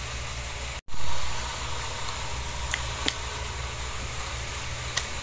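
Electric fan running steadily, an even whirring rush over a low motor hum. The sound cuts out for an instant about a second in, and a few faint clicks come later.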